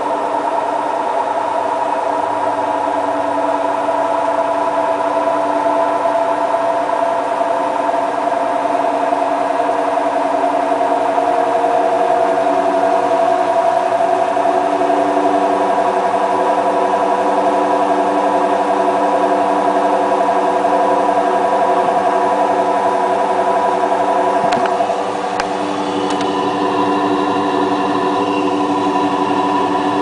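Hotpoint Ultima WT960 front-loading washing machine spinning its drum at about 800 rpm in the intermittent spin between rinses: a steady motor whine made of several tones. About 25 seconds in, the tones shift and the level drops a little.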